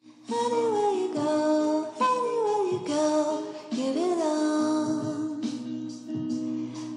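Background music with a singing voice carrying a melody over steady accompaniment, starting about a third of a second in.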